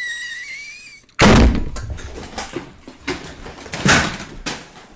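A high sliding tone for about the first second, then a sudden heavy thump about a second in, like a door slamming, followed by a few lighter knocks and thumps.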